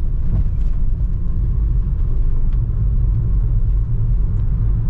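Steady low rumble of a moving car heard from inside its cabin: road and engine noise of a 2008 Nissan Grand Livina being driven.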